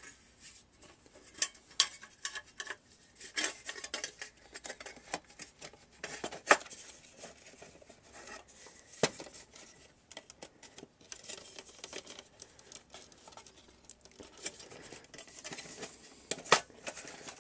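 Irregular light metallic clicks and clinks as screws, a screwdriver and parts are handled on a DVD recorder's metal chassis, with a few sharper clicks scattered through.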